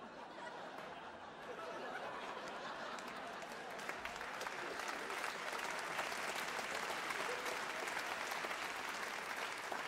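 Theatre audience applauding, the clapping growing louder over the first few seconds and then holding steady.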